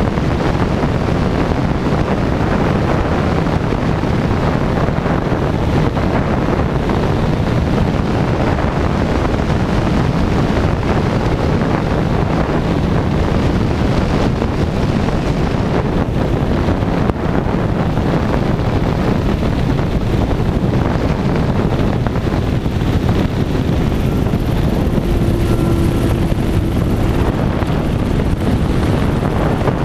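Light aircraft's engine and propeller running, heard through heavy wind buffeting on a wing-mounted camera microphone, as a steady, loud rush during a low final approach and landing on a dirt strip.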